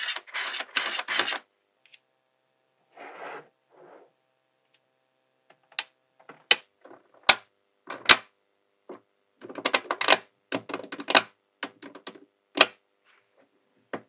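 Magnetic balls clicking and clattering as they are handled and snapped together: a rattle at the start, then sharp single clicks and short clattering runs.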